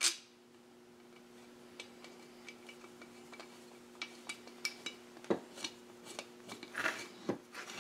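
Husqvarna 572XP chainsaw parts being handled and fitted by hand: a sharp knock at the start, then scattered light clicks and taps of plastic and metal that come more often in the second half. A faint steady hum runs underneath.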